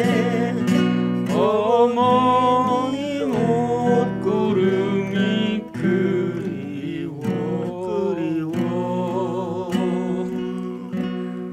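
A man singing a slow song in E minor with vibrato, accompanied by a strummed acoustic guitar. The voice eases off for a few seconds past the middle, then comes back, and the guitar grows quieter near the end.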